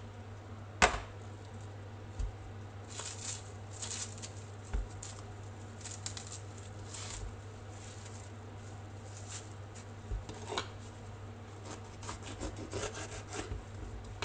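Food preparation on a wooden chopping board: a sharp knock about a second in, then rustling as a plastic bag is handled, and near the end scraping strokes of a serrated knife sawing through a red bell pepper, over a steady low hum.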